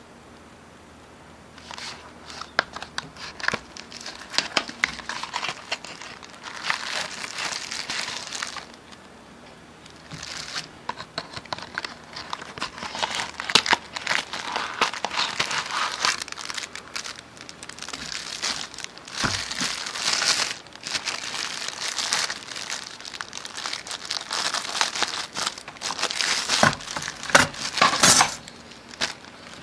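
Paper or plastic packaging being crinkled and crumpled by hand, in stretches of crackling with a short pause about a third of the way in.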